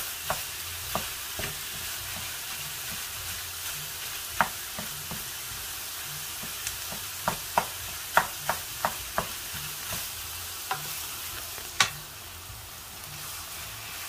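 Minced beef with diced carrot, onion and celery sizzling in a frying pan as it browns, stirred and broken up with a wooden spoon. Scattered sharp clicks of the spoon against the pan cut through the steady hiss, the loudest near the end.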